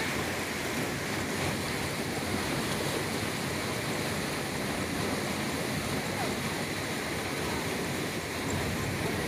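Wind buffeting the microphone outdoors: a steady rushing hiss with an uneven low rumble.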